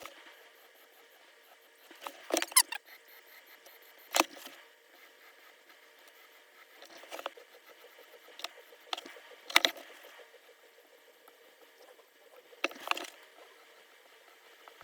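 Hot soldering-iron tip pressed into the polymer grip of a Glock 30SF frame, the plastic bubbling as it melts in short, scattered crackles, about a dozen of them. Between them there is only a faint hiss.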